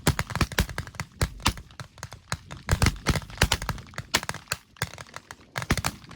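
Rapid-fire rifle shots from many shooters along a firing line, several a second, irregular and overlapping.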